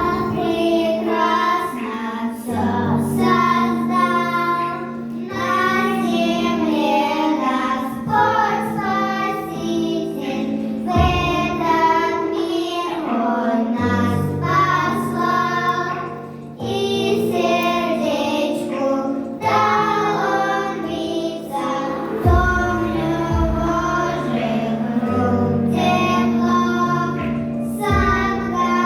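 Children singing a song together over an instrumental backing track with steady bass notes.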